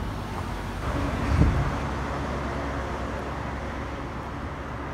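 Outdoor city ambience: a steady low traffic rumble that swells briefly about a second in.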